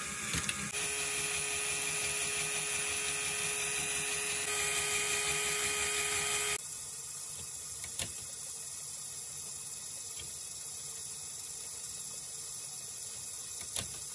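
Lego electric motors and gears of a marble run whirring steadily, with a faint steady tone over the whir. About six and a half seconds in, the sound drops suddenly to a quieter whir, with a couple of light clicks.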